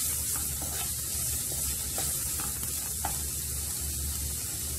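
Chopped onions sizzling in hot oil in a nonstick pan, stirred with a wooden spatula that gives a few light scrapes and taps. The onions are being fried until they turn glossy.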